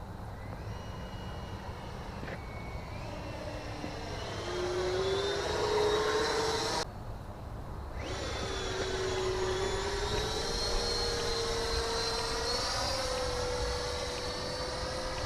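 A small motor running with a steady whine that climbs in pitch in steps. About seven seconds in the sound briefly drops out, then comes back lower and rises again.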